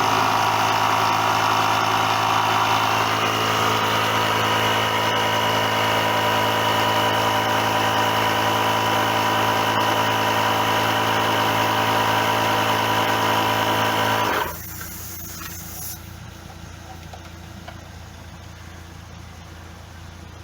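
12 V DC mini air compressor running steadily while inflating a car tyre. It cuts off abruptly about fourteen seconds in, leaving only a faint low hum.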